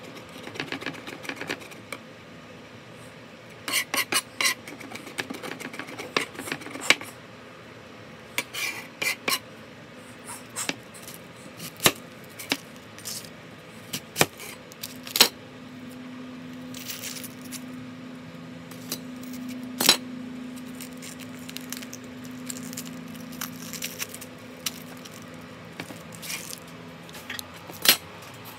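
Knife blade chopping garlic on a plastic cutting board: quick runs of sharp knocks in the first third, then single knocks spread out through the rest.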